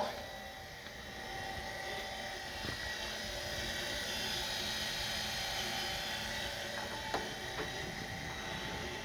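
Cincinnati No. 2 tool and cutter grinder's motor and spindle running, a steady mechanical hum with a thin whine that builds over the first couple of seconds and then holds steady. Light clicks come about seven seconds in.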